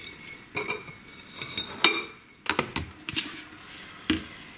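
Dry dill rustling as it is stuffed by hand into glass jars, with sharp clinks and knocks of the glass jars and a metal bowl against each other and the counter.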